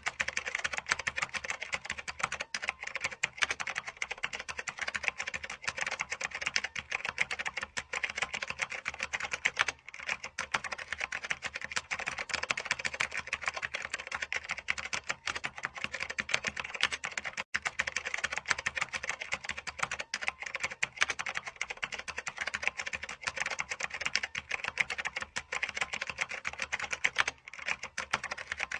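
Fast, continuous typing on a computer keyboard: rapid key clicks with only a few brief pauses.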